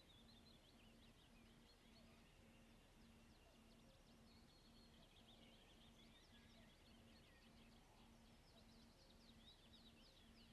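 Near silence: faint high bird chirps, many short notes falling in pitch, with a faint low hum that pulses about twice a second.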